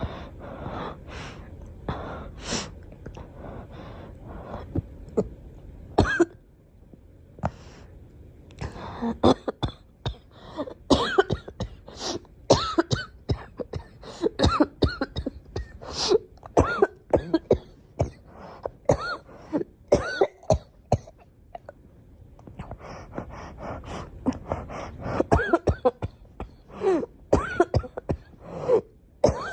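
A girl coughing repeatedly in fits of many short, sharp coughs, some of them voiced, with quieter pauses of a second or two between fits.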